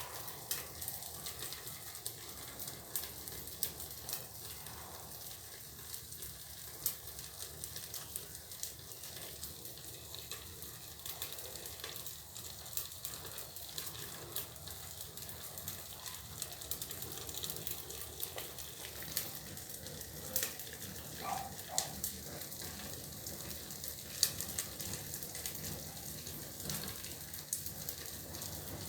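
Fire crackling: a steady hiss with scattered sharp pops throughout.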